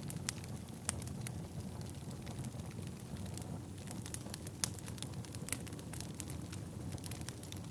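Burning firewood crackling: irregular sharp pops and snaps over a steady low rush of the flames, with one louder pop about halfway through.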